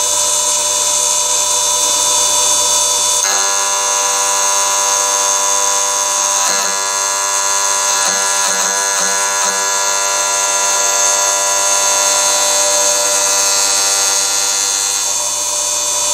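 Small high-speed electric spindle running a 3 mm end mill with a steady high-pitched whine as it is plunged into the end of a brass nut; the sound changes about three seconds in.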